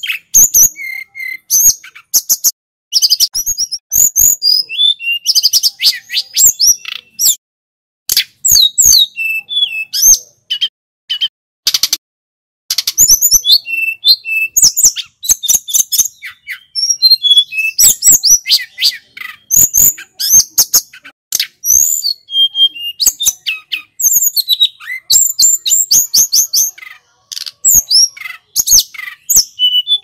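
Caged tledekan gunung singing a loud, rapid song of high chirps, whistled slurs and trills in full, persistent voice (gacor), broken by short pauses about 7 and 12 seconds in.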